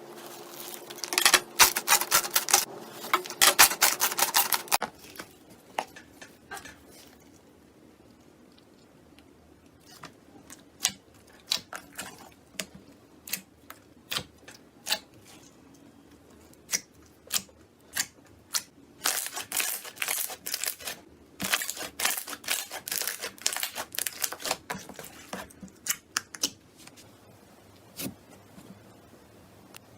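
Slime being handled, giving crackling clicks and pops. There are dense runs of clicks for the first five seconds and again from about 19 to 26 seconds, with sparser single pops between.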